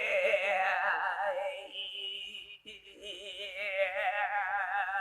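Music: long held notes with a wide, even vibrato, opera-like, with a brief break about two and a half seconds in.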